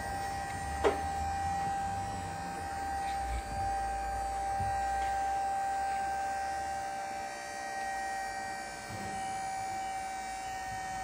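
Skyjack scissor lift raising its platform, giving a steady high whine, with a low rumble under it for the first half. A single click about a second in.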